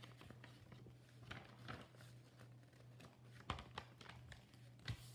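A sheet of paper being folded by hand: faint rustling and creasing, with two sharp taps or creases in the second half, over a steady low hum.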